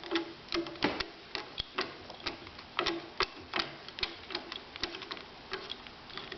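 Phillips screwdriver turning a screw out of a ski binding: irregular sharp clicks, about two or three a second, with short squeaks between some of them.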